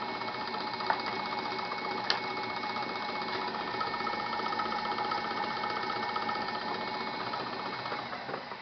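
Homemade scroll saw running steadily with a fast, even chatter of its reciprocating blade mechanism, a couple of sharp clicks in the first few seconds; it dies down near the end.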